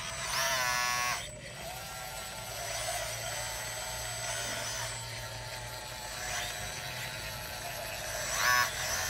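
Radio-controlled CAT D8 bulldozer model's electric motors whining steadily as it pushes soil, with a rising whine about half a second in and a short louder whine near the end.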